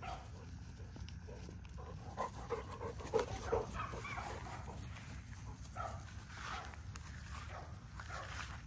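XL bully dogs playing together, giving a run of short vocal sounds, thickest and loudest between about two and four seconds in, over a low steady rumble.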